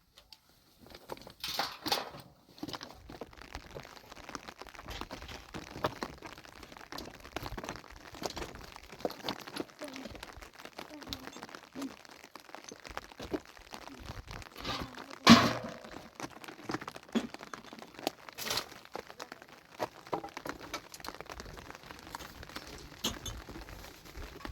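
Irregular crackling and knocking of objects being handled, with a few sharper strikes and one loud impact about fifteen seconds in.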